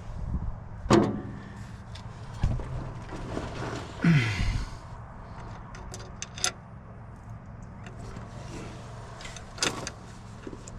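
Scattered knocks and clinks of metal bolts, nut and tools being handled while fitting a horn mounting bracket up under a truck, over a steady low hum.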